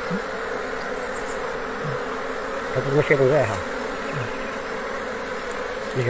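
A colony of wild honeybees buzzing steadily, stirred up as their nest among the rocks is raided for its honeycomb. A brief murmur of a man's voice comes about three seconds in.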